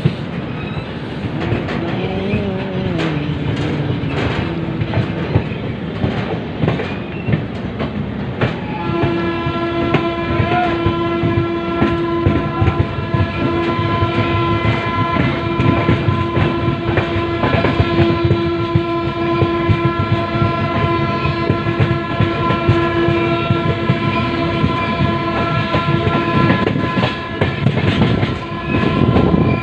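Sadbhavna Express passenger train running on the rails, with steady rumble and the clickety-clack of the wheels over rail joints. About nine seconds in, a long, steady train horn starts and holds for about twenty seconds before stopping.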